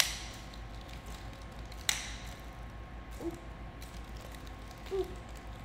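Nunchaku being swung and twirled, with two sharp taps, one at the start and one about two seconds in, and a couple of brief faint squeaks later.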